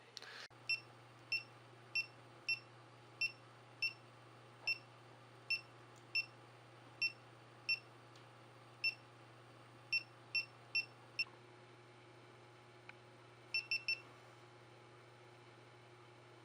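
GoPro Hero 4 camera beeping: about sixteen short single beeps at uneven intervals, then three quick beeps in a row near the end, over a steady low electrical hum.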